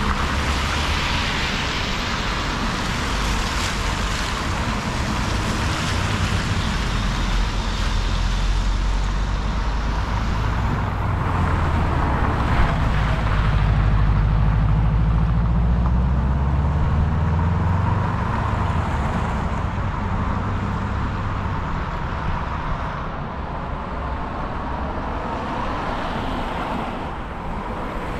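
Road traffic passing, heard while cycling alongside the road: a steady rumble of tyres and engines, with a vehicle engine slowly rising and falling in pitch through the middle.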